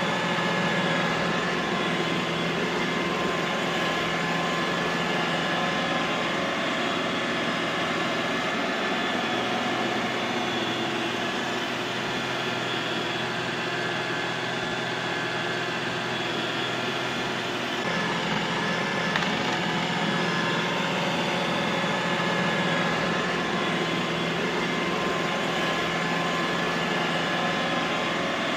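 Robot vacuum cleaner running: a steady whir of motor and suction fan with a faint whine in it. The tone shifts slightly about eighteen seconds in.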